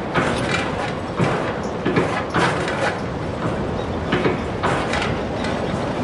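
Windmill mechanism recorded up close, its metal parts clanking and creaking in an uneven rhythm of a few knocks a second over a steady rushing noise.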